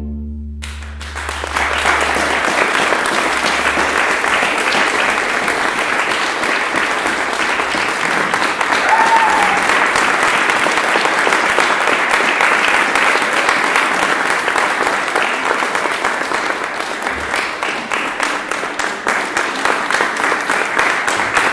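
A string orchestra's final chord dies away in the first second, then an audience applauds with steady clapping that carries on.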